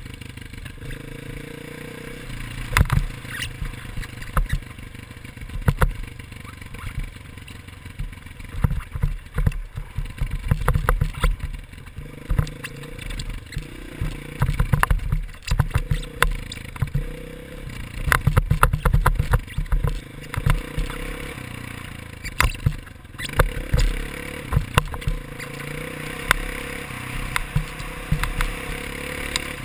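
Dirt bike engine revving up and easing off again and again as the bike is ridden. Heavy low wind buffeting and frequent knocks on the helmet-mounted camera often drown it out.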